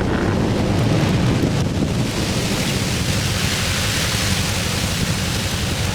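Triumph Spitfire's 1147cc four-cylinder engine running steadily on the move, under heavy wind and road rush. A rushing hiss grows louder about two seconds in.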